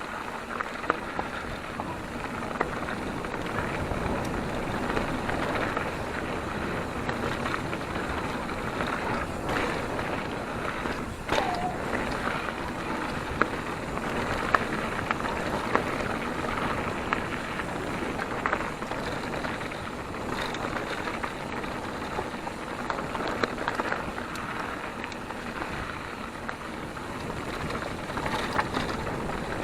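Mountain bike being ridden over a dirt track: steady tyre and wind noise with frequent sharp clicks and rattles from the bike.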